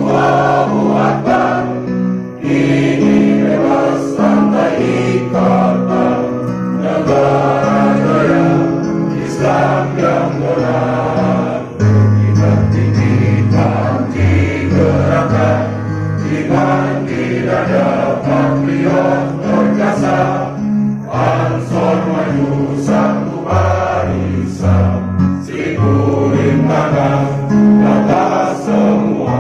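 A pesantren choir singing continuously over a line of low notes, each held for about a second.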